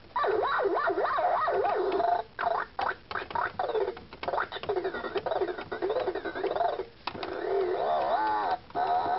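Circuit-bent electronic toy putting out warbling electronic tones that swoop up and down in pitch, cutting out abruptly several times.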